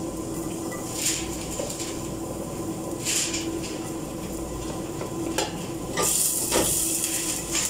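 Chopped garlic sizzling in hot cooking oil in a stainless steel pot as it is scraped in off a plate with a wooden spoon. The sizzle comes in short bursts about a second in and after three seconds, and louder and longer near the end.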